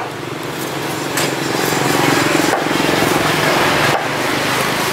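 An engine running steadily close by, the loudest sound throughout. Over it, three knife strokes cut through a giant trevally fillet, each ending in a short tap on the chopping block, roughly a second and a half apart.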